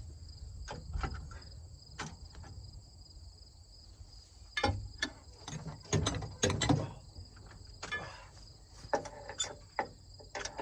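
Irregular metal knocks, clanks and scrapes as a snapped-pin brush hog is worked back into line with the tractor's hitch, densest in the middle and again near the end. Insects chirr steadily underneath.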